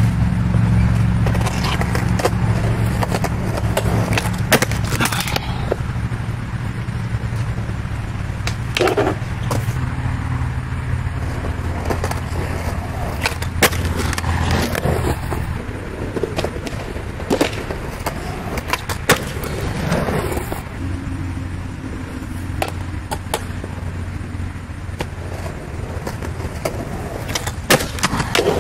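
Skateboard wheels rolling on concrete with a steady low rumble, broken every few seconds by sharp clacks of the board: tail pops and landings on the slab.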